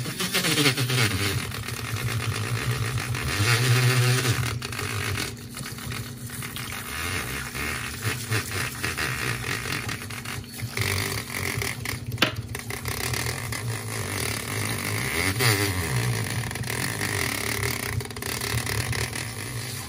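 Battery-powered handheld milk frother running, its spinning wire whisk churning melted chocolate and milk in a glass bowl; the motor's hum wavers in pitch as the whisk is moved through the liquid. One sharp click about twelve seconds in.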